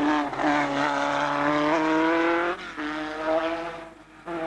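Formula 3 racing car's four-cylinder engine held at high revs as it climbs past, its pitch creeping up. It dips briefly about two and a half seconds in, then fades away near the end.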